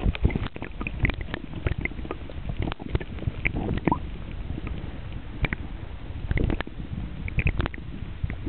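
Muffled water sloshing and rumbling heard through a camera held underwater, with scattered small clicks and knocks from the water and handling.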